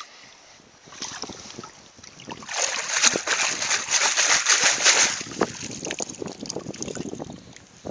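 Water splashing and sloshing as a perforated metal sand scoop is dug into a shallow lake bed and worked through the water, loudest for a couple of seconds in the middle, then water draining and trickling through the scoop's holes as it is lifted out.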